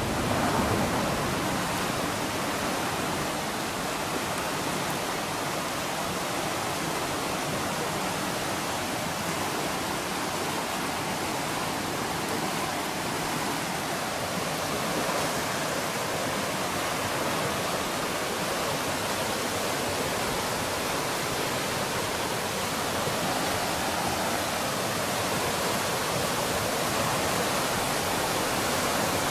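Steady, dense rush of white water from the Oirase mountain stream, its rapids or a waterfall running continuously.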